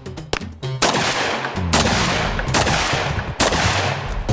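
Four gunshots about a second apart, each with a sharp crack and a long echoing tail, over background music.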